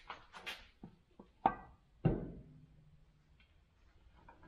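Scattered sharp metal clinks and knocks of hand tools and clutch parts being handled while the clutch's castle nuts are tightened. The loudest knock, about two seconds in, rings briefly.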